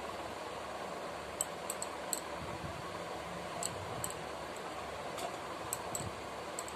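Scattered faint, sharp clicks as hands divide dough into small balls over a steel bowl, over a steady background hiss.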